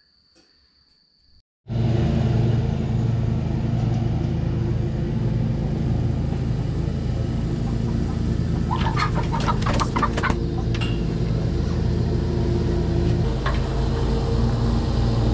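An engine running steadily at an even pitch, coming in suddenly about two seconds in, with a short run of sharp clicks about nine to ten seconds in.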